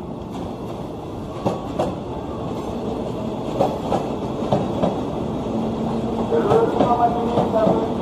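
Electric commuter train running past, its wheels clicking over rail joints as the rumble grows louder. Near the end a wavering whine rises over it.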